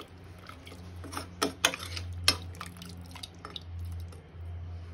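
Metal ladle stirring mutton curry in a pressure cooker: wet stirring of the thick gravy and several sharp clinks of the ladle against the pot, the loudest about two seconds in, over a steady low hum.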